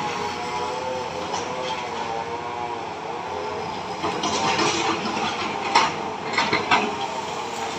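Heavy earthmoving machine's diesel engine running under varying load, its pitch wavering up and down, with several sharp metallic clanks between about four and seven seconds in.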